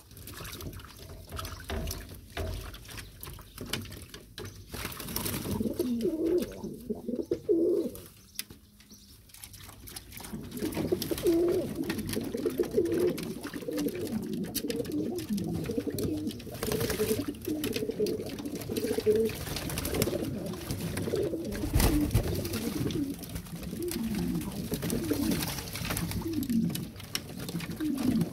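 A flock of domestic pigeons cooing, many coos overlapping one after another, with scattered clicks and knocks. There is a quieter lull about a third of the way in.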